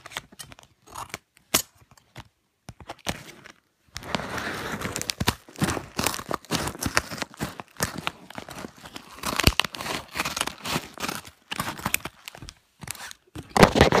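Plastic packaging being crumpled and torn open by hand: a few scattered crinkles at first, then from about four seconds in, dense, continuous crinkling and tearing.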